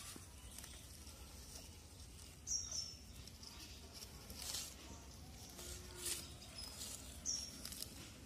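A bird chirping: short high calls that drop slightly in pitch, a pair about two and a half seconds in and another near the end, over a faint outdoor background with a few brief rustles.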